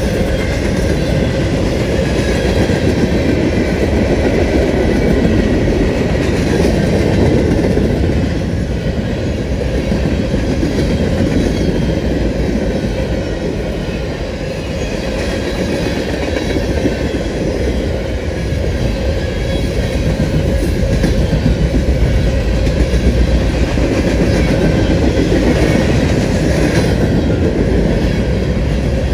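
Freight cars of a long mixed manifest train, boxcars and tank cars, rolling past close by. Their steel wheels make a steady, loud rumble on the rail, with occasional clicks over it.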